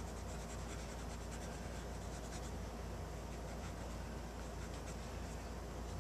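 Cotton swab rubbing oil paint onto a photographic print in quick, soft strokes, densest in the first couple of seconds, over a steady low hum.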